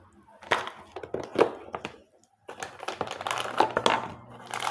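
A plastic food packet crinkling as it is handled, with a few sharp knocks in the first couple of seconds and steady crackling near the end.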